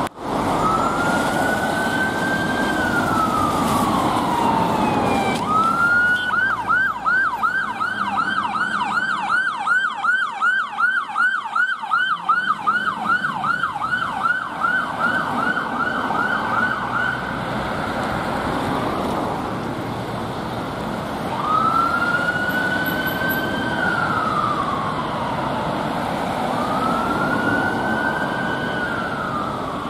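Fire engine's electronic siren. It starts with a slow wail that rises and then falls over several seconds, switches to a fast yelp of about three or four sweeps a second for around ten seconds, then goes back to the slow wail.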